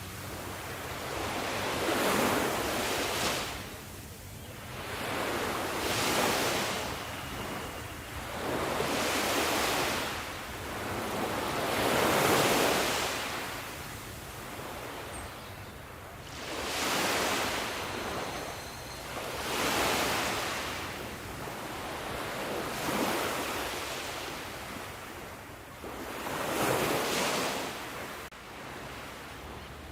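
Sea waves breaking, each swell of surf rising and washing away in turn, one about every three to four seconds.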